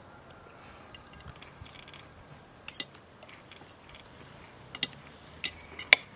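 Metal fork and knife clinking and scraping against a plate while eating, about half a dozen sharp clinks from midway on, the loudest just before the end.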